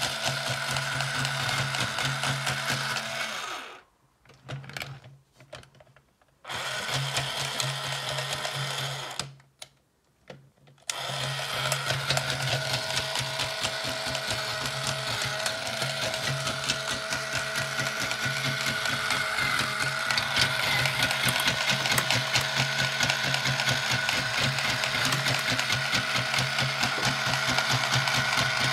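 Chain Fong 'Talkabot' bump-and-go toy robot's small electric motor and plastic gear train whirring steadily, with a broken, split bump-and-go gear. The whir cuts out twice in the first half and then runs on with a fine, rapid ticking.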